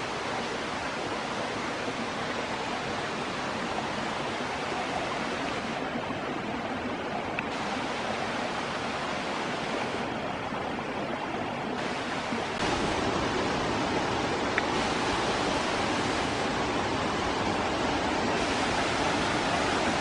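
Steady rush of water from a small rocky waterfall and the stream below it, growing louder past the middle.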